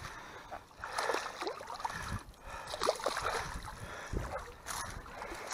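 Shallow water splashing and dripping as a bowfished carp is handled and lifted out of it, in small irregular splashes.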